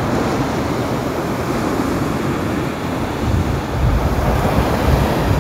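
Ocean surf washing on a rocky shore, with wind buffeting the microphone in low gusts from about three seconds in.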